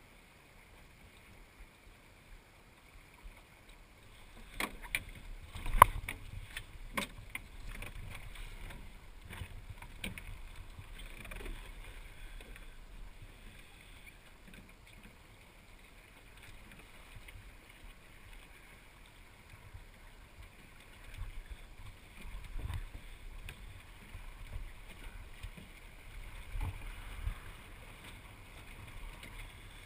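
Water rushing and washing along the hull of a small sailing dinghy under way, with wind on the microphone. About four seconds in a string of sharp knocks and clatter from the boat begins, the loudest around six seconds in, and a few more knocks come near the end.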